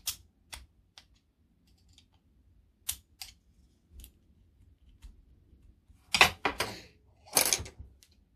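Small hard model parts and tools clicking as they are handled and set down, with scattered single clicks and then two louder clattering bursts near the end.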